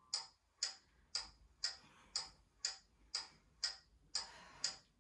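Steady, even ticking, about two ticks a second, like a clock or a workout timer counting down.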